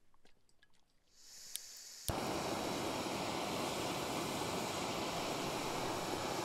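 Portable camping gas stove being lit: a soft hiss of gas as the valve opens, a click, then the burner catches about two seconds in and runs with a loud, steady rushing noise.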